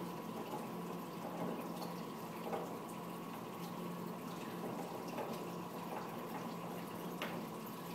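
Water running steadily through the clear pipes of a small pipeline pigging test rig, with a steady low hum behind it. A light click about seven seconds in.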